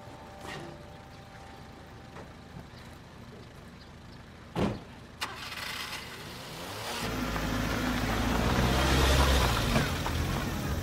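A light truck's cab door slams shut about halfway through, followed by a smaller knock. A few seconds later a vehicle engine starts running and grows louder for a couple of seconds.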